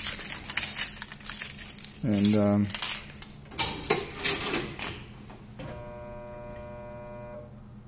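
Hobart commercial dishwasher during its cycle: a run of sharp metallic clicks and clattering, then a steady electrical hum for about two seconds near the end.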